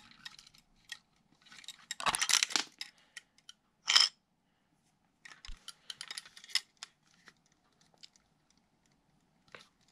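Plastic Lego bricks clicking and rattling as a built Lego house is handled and turned over, with a sharp clack about four seconds in.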